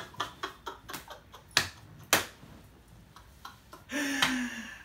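A man laughing loudly in quick breathy bursts, with two sharp smacks about a second and a half in, half a second apart. Near the end the laugh turns into a drawn-out voiced "haaa".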